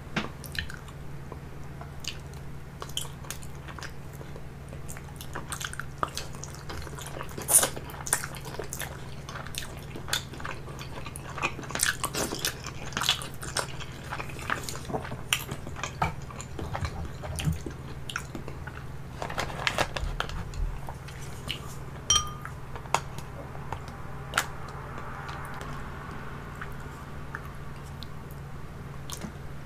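Close-miked eating sounds of steamed dumplings: bites, wet chewing and many sharp clicks, over a steady low hum.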